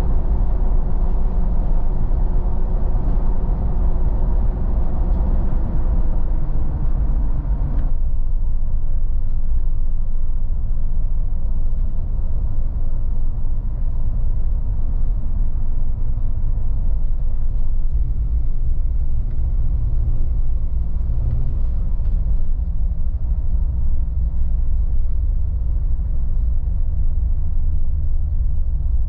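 Cabin sound of a 2018 Jeep Wrangler Sahara driving at highway speed: engine drone over a low road and tyre rumble. About eight seconds in, the engine's higher note cuts off suddenly, leaving a steady low rumble.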